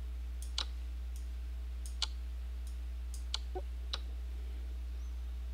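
Computer mouse clicking about five times, sharp single clicks spaced a second or so apart, with three close together in the second half, over a steady low electrical hum.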